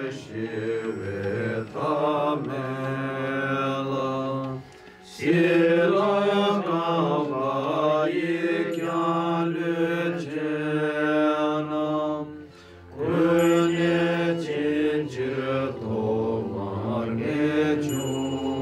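Tibetan Buddhist monks chanting a mantra in long, held, gliding tones. The chant breaks briefly about five seconds in and again a little past twelve seconds.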